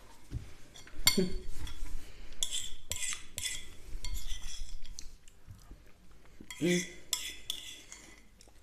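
A metal spoon scraping and clinking against a bowl while scooping up soft cake and cream. The loudest strokes come about a second in and again near seven seconds.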